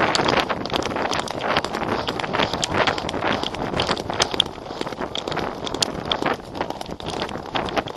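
Horse hoofbeats, a dense run of irregular sharp knocks, heard close over the rustle and knocking of a jostled camera.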